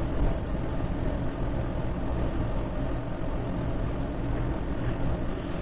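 Steady, dense rumbling background noise with no distinct knocks or voices, heaviest in the low range.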